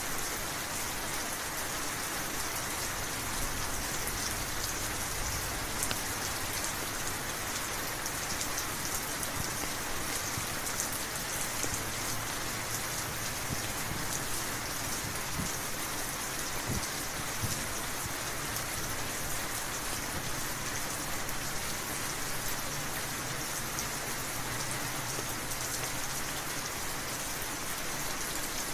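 Steady rainfall, with many individual drops ticking on a surface.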